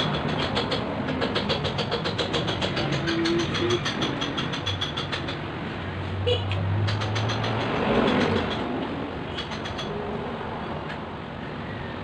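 Commercial laundromat machines running: a steady low hum with a rapid rattling clatter, about seven or eight clicks a second. The clatter goes on through the first half and comes back in shorter spells later on.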